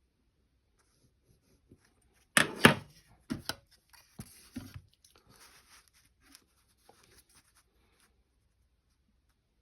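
Drawing tools at work in a geometric construction: two sharp knocks a little over two seconds in, the loudest sounds, then a few lighter taps and a few seconds of soft scratching of a pencil across the drawing surface, fading out after about eight seconds.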